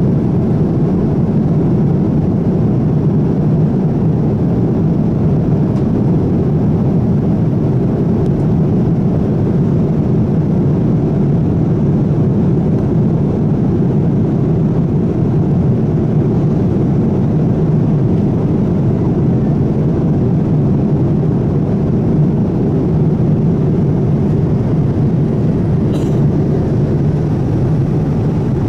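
Steady low rumble of a Boeing 787 Dreamliner cabin in flight: jet engine and airflow noise, even in level throughout.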